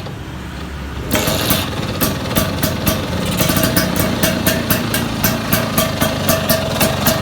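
Vespa PX two-stroke single-cylinder engine running at idle through a big-box exhaust. It gets louder about a second in and then runs with sharp, regular pops several times a second.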